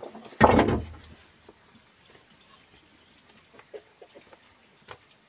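A long hollow bamboo water pipe set down onto the ground and stone rim, landing with one heavy thud about half a second in, followed by a few faint knocks.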